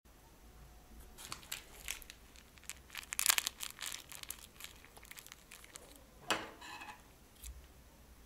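Plastic piping bags crinkling and crackling as they are handled: scattered sharp crackles, loudest about three seconds in, and another burst about six seconds in.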